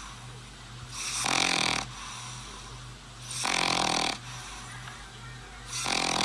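A sleeping pet snoring: three drawn-out snores about two and a half seconds apart, over a low steady hum.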